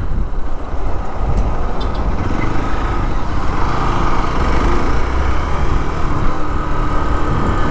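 Hero Xpulse motorcycle riding on a town road: a steady mix of engine and road noise, with wind rumbling on the microphone.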